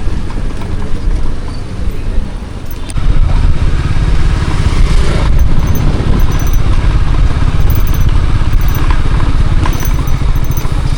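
Motorcycle running, a steady low rumble that steps up in loudness about three seconds in and then holds.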